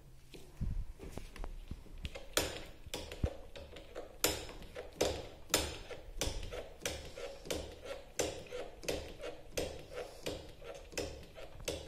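Front disc brake lever of a Pulsar 150 being pumped repeatedly by hand, clicking about twice a second, to firm up the brake after air has been bled from the line.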